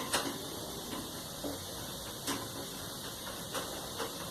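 A few light, scattered clicks and taps from a hand tool working on the dryer's cabinet screws, over a steady background hiss.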